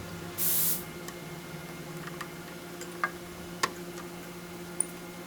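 One short squirt from a spray bottle of soapy water about half a second in, followed by a few light clicks and taps of parts being handled, over a steady low hum.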